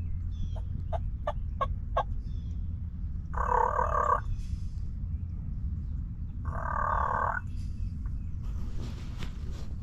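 Wild turkey tom gobbling twice, two loud rolling gobbles a few seconds apart. They follow a quick run of short, sharp clicking sounds, all over a steady low rumble.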